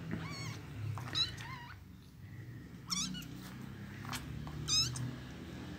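Young kittens mewing: a string of short, high-pitched mews, about six, some overlapping.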